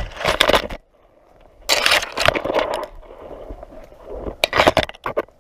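Leaves and twigs scraping and crackling against a body-worn camera as the wearer pushes through thick brush, in three loud rustling bursts: near the start, about two seconds in, and near the end.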